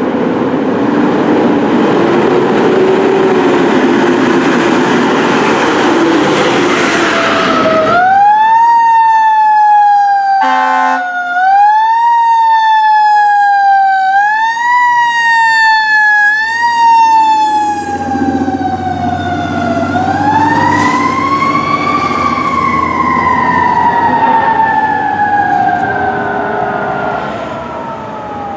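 Fire trucks responding with air horn and electronic sirens. A loud, long air-horn blast fills the first seven or eight seconds. Then a siren wails in cycles that rise quickly and fall slowly, about every two and a half seconds, broken by a short horn blast about ten seconds in. From about twenty seconds a second siren makes one long rising and slowly falling wail over a passing truck's engine.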